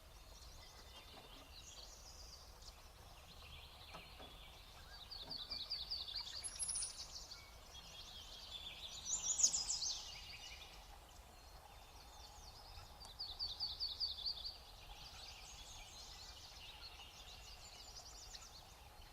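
Small songbirds calling and singing in short bouts, with high, rapid trills and chirps. The loudest burst comes about nine and a half seconds in.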